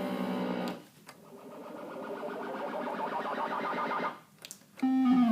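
SammichSID synthesiser, driven by two 6582 Commodore 64 SID chips, playing 8-bit video-game-style sounds. A held buzzy tone cuts off just under a second in, then a rising sweep swells up over about three seconds and stops. After a short gap a lower tone starts near the end and steps downward in pitch.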